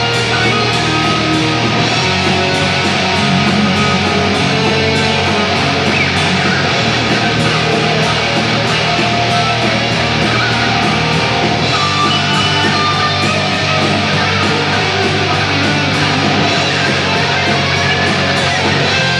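Heavy metal band playing an instrumental passage with no vocals: distorted electric guitars and bass over an evenly spaced drum beat. The chords shift about two seconds in and again near twelve seconds.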